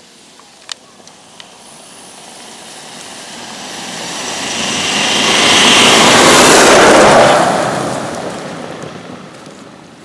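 Pickup truck driving along a frozen dirt track, approaching, passing close by about six to seven seconds in, then fading away.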